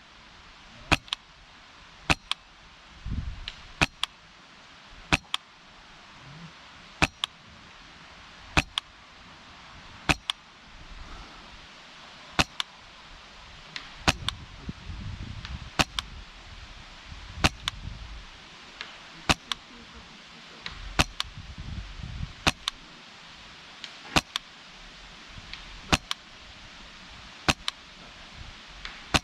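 PolarStar Kythera HPA airsoft rifle firing single shots, one sharp crack about every one and a half to two seconds, about eighteen in all.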